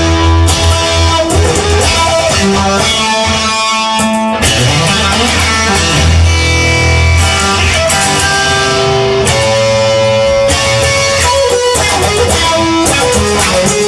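Instrumental break in a rock song: guitar playing held, shifting notes over a steady low bass.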